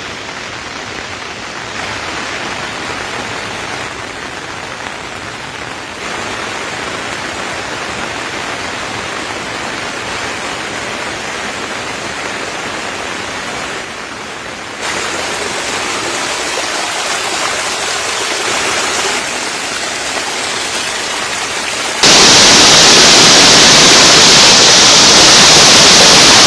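Steady rush of flowing water, a monsoon flood torrent, as an even noise that steps louder at several points and jumps much louder near the end.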